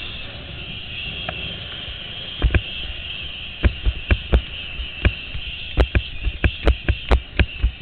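Zipwire trolley running along the steel cable with a steady high whirr and wind rumble on the microphone, broken by sharp knocks and clatters that come thicker from about three and a half seconds in.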